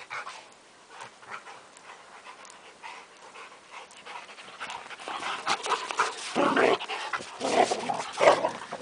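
Two young dogs, a Rottweiler and a Maremma sheepdog, panting and scuffling in rough play. The first half is quieter, and there are louder breathy bursts from about halfway in.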